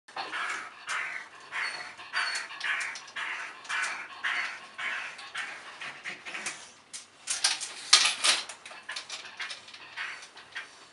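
A Welsh terrier clicking his teeth in quick, sharp clicks, his usual reaction to being sprayed, with short hissing squirts from a hand spray bottle of water about once or twice a second. The clicks come thickest and loudest a little past the middle.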